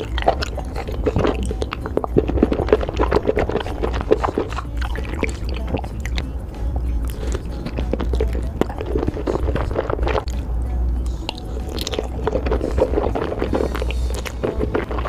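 Close-miked chewing and biting of chewy octopus tentacle and fish cake in spicy red sauce: a dense run of quick wet mouth clicks.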